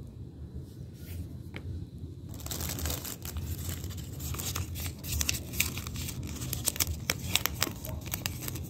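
Grey adhesive pad for an ab roller's arm plate being peeled off its backing: a crackling, tearing sound that starts about two seconds in and goes on with many sharp crackles.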